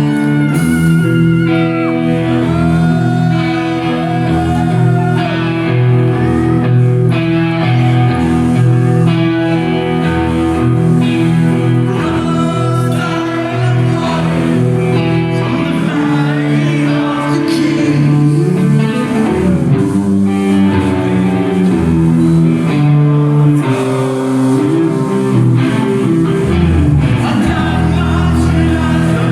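Live heavy metal band playing loud and without pause: distorted electric guitar over bass and drums, with some sung vocals.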